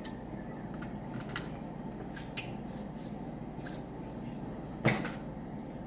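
Shellfish being shelled and eaten: scattered short cracks and clicks of shell breaking, with one louder crack about five seconds in.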